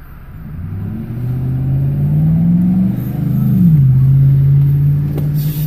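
Car engine accelerating: the pitch climbs for a few seconds, drops sharply about three and a half seconds in as the transmission shifts up a gear, then runs steady.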